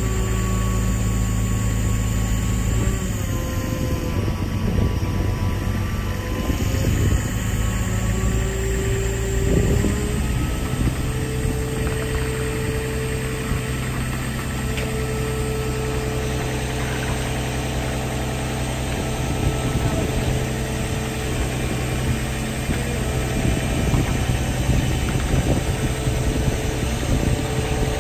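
Diesel power pack of a self-propelled modular trailer running steadily as the trailer creeps under the locomotive, with a higher steady tone that shifts up and down in pitch a few times. Wind buffets the microphone.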